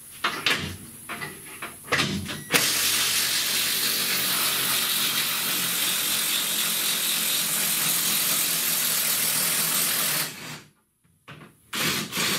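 A few clicks and knocks of a socket and extension going onto a bolt. Then a power ratchet runs steadily for about eight seconds, backing out a 16 mm fuel-tank strap bolt, stops abruptly, and gives two short bursts near the end.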